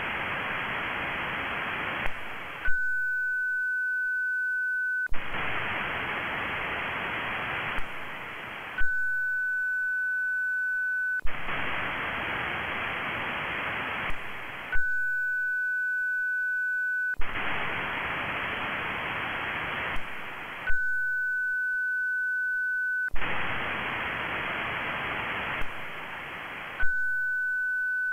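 Moonbounce (EME) echo-test cycle from an amateur radio station running WSJT echo mode. A steady pure tone of about 1500 Hz lasts about two and a half seconds, then about three and a half seconds of receiver hiss follow while the station listens for the echo returning from the Moon. Clicks mark the changeovers, and the cycle repeats about every six seconds.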